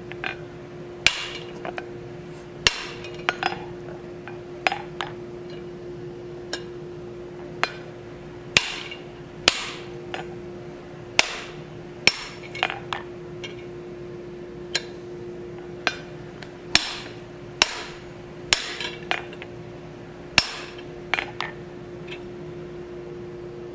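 Hammer blows on a guillotine fuller tool sitting on the anvil, pinching notches into a red-hot steel bar to rough out the lobes of an oak leaf. The strikes are single and sharp, come at uneven intervals of about one a second with short pauses, and a steady hum runs underneath.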